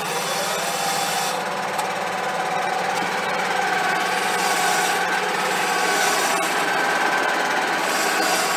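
Diesel tractor engine idling steadily while it warms up, with a faint steady whine coming in about three seconds in.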